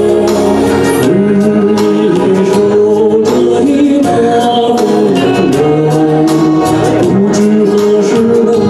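A man singing a Chinese pop song into a handheld microphone over backing music with a steady beat.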